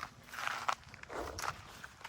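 Dry leaf litter on the forest floor crunching and rustling in several short, irregular bursts.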